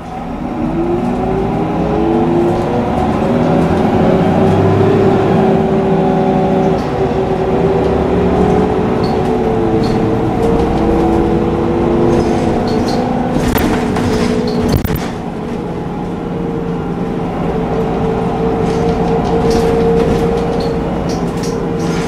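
Irisbus Citelis 18 articulated bus heard from inside the cabin as it accelerates: the Iveco Cursor 8 diesel and Voith automatic gearbox hum and whine, climbing in pitch, dipping briefly a couple of times and climbing again. About two-thirds of the way through there is a couple of seconds of rattling.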